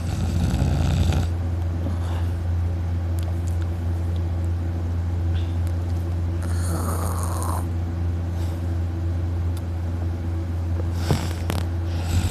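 Loud snoring of a young man in deep sleep: rasping snore breaths about a second in, near the middle and near the end, over a steady low hum.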